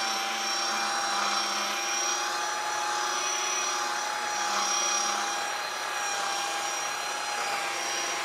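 Electric power sander running steadily on a black walnut board, a constant motor whine over the hiss of sanding.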